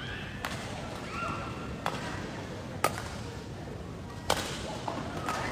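Badminton rally: four sharp racket-on-shuttlecock hits about one to one and a half seconds apart, the last two loudest. Short shoe squeaks on the court floor over a steady hall background.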